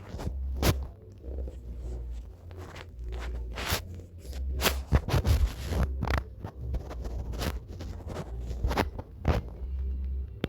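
A person wheezing with laughter: a run of short, sharp, breathy gasps at irregular intervals.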